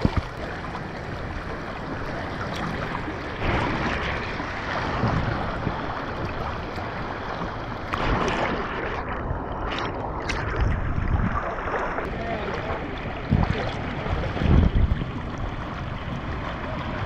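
River water splashing and rushing around a floating inner tube, with wind buffeting the action camera's microphone and a few low thumps, the strongest toward the end.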